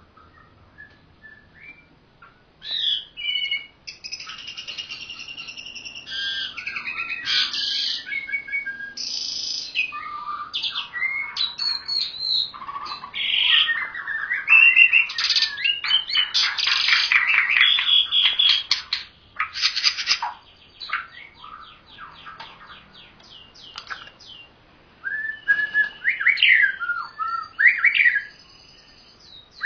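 Songbirds singing, a Javan pied starling and a white-rumped shama: loud, varied whistles, squawky chatter and rapid trills. It starts about three seconds in, quiets for a few seconds past the middle, then resumes.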